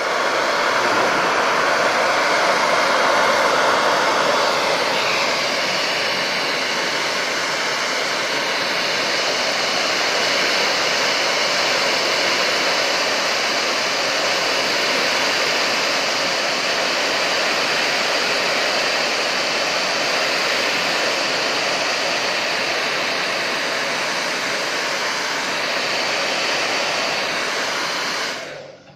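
Handheld hot-air blower running steadily with a loud rushing hiss and a faint fan whine, switched on suddenly at the start and cut off just before the end.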